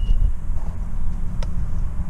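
A steady low rumble, like a vehicle running, with a single short click about one and a half seconds in.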